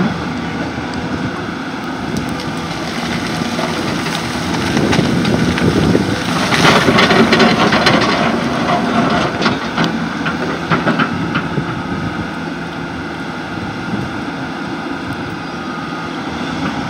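Hydraulic excavator working: the diesel engine runs under load with clanking and knocking from the machine, louder for a few seconds in the middle.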